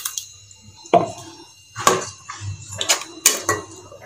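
Spoon knocking and scraping against a mixer-grinder jar as thick ground coconut paste is tipped out of it into a pot: a few sharp knocks about a second apart.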